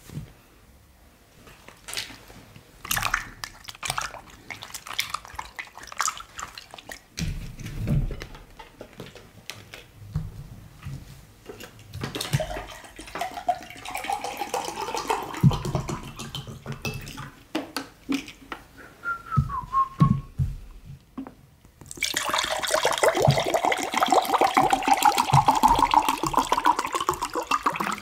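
Scattered clicks and knocks of handling at the table, then a bottle of water poured into a drinking glass for the last several seconds. The pour has a rising tone as the glass fills.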